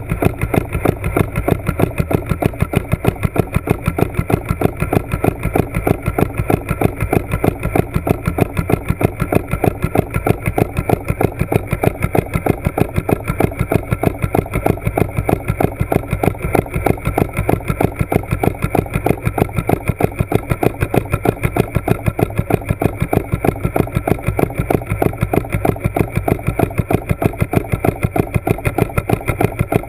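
A motor running steadily with a rapid, even pulse of several beats a second, heard underwater.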